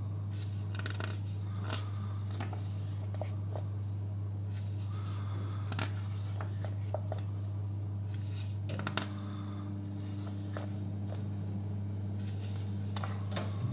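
Pages of a glossy printed book being handled and turned, giving soft paper rustles and small clicks a few times over a steady low hum.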